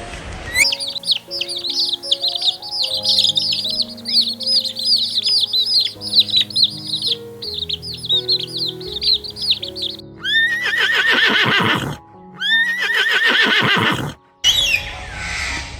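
Rapid, high-pitched bird chirping over background music for about nine seconds, then two long horse whinnies of about two seconds each.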